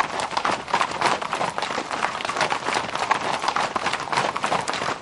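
Horses' hooves clattering on hard ground: a dense, irregular run of many quick strikes from more than one horse on the move.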